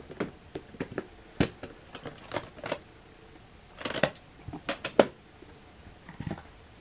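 Plastic VHS clamshell case being handled and opened, and the videocassette taken out and set down: a run of sharp plastic clicks and clacks, loudest about a second and a half in and again about five seconds in.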